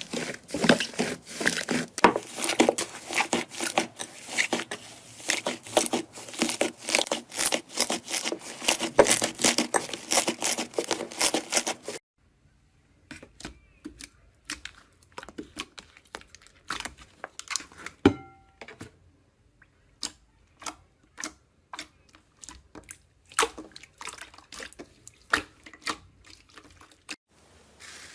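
Slime being squeezed and stretched, giving rapid crackling and popping clicks. About twelve seconds in it changes to sparser, separate pops, with a short ringing tap a few seconds later.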